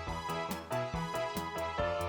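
Upbeat background music: pitched electronic notes over a steady beat.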